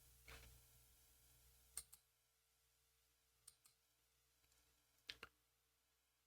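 Near silence: room tone with a few faint, sharp clicks, most of them in close pairs, spaced about a second and a half apart.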